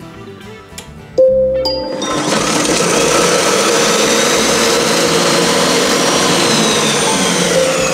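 Monsieur Cuisine Smart food processor's blade spinning at high speed (speed 8), chopping onion and parsley in its closed bowl. The motor starts about a second in, runs loud and steady, and begins to wind down with a falling whine near the end.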